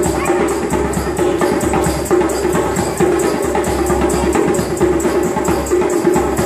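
Subway busker's percussion music: a fast, even beat of sharp strikes over a sustained note, played without a break.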